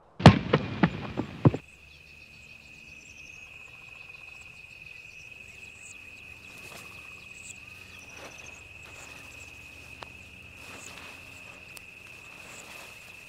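A quick run of sharp knocks or cracks for about the first second and a half, then a steady high-pitched insect trill with faint rustling of someone moving through brush.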